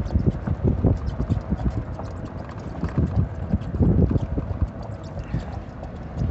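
Wind buffeting the microphone, with a quick run of irregular knocks and thumps and a faint steady whine that fades out about five seconds in.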